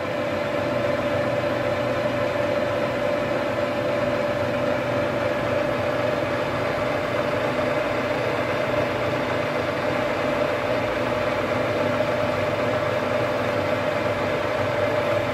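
Metal lathe running with its chuck spinning freely, not yet cutting: a steady machine hum with one prominent steady tone.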